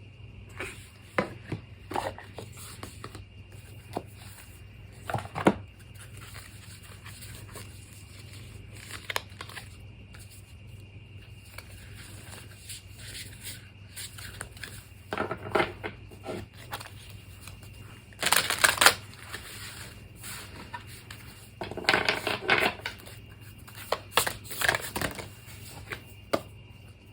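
Handling noises from unboxing: scattered taps and clicks, then several short bursts of paper or plastic rustling and crinkling, the loudest a little past the middle.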